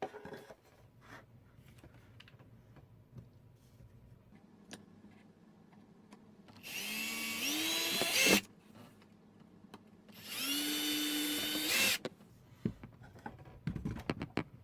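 Electric drill boring holes through a thin bamboo tray: two runs of about two seconds each, a motor whine that rises as it spins up on the first and holds steady on the second, with light knocks of handling the tray between them.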